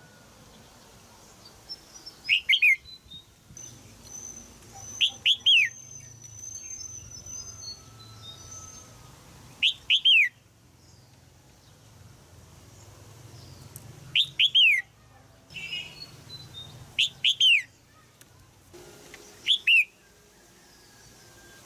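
Red-whiskered bulbul giving sharp 'jiak' calls, each a quick cluster of two or three downward-sliding notes, repeated every few seconds. A fainter, higher warbling bird song is heard near the start.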